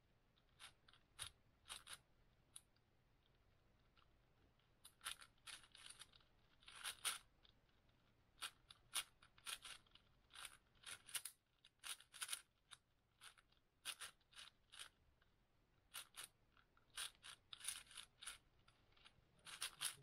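6x6 speedcube being turned by hand: quick scraping clicks of its layers turning, in uneven runs with brief pauses between.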